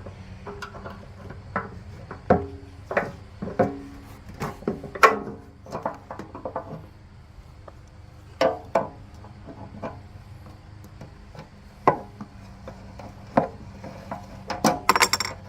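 Wrench and metal fittings clinking and knocking irregularly as a motorcycle fuel petcock is worked loose from the tank, some knocks with a short metallic ring.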